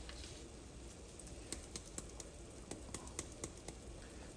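Ground cumin shaken from a plastic flip-cap spice jar into a pot, making faint, irregular light ticks and taps over a low hiss.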